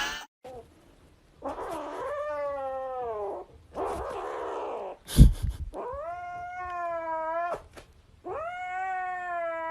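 A cat yowling: three long drawn-out wails, each lasting a second or two, with rasping noise between the first two. A sharp thump just past the halfway mark is the loudest sound.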